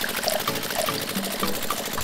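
A thin stream of liquid pouring from a small machine's spout into a plastic bucket, over the steady running of the machine's small belt-driven motor.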